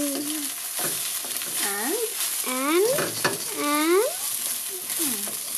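Egg fried rice sizzling in a steel wok while a wooden spatula stirs and scrapes through it, tapping the pan now and then. Several short rising pitched sounds come over the frying, about a second apart.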